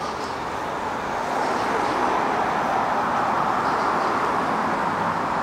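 Steady vehicle running noise that swells about a second in and holds, with a few faint high squeaks.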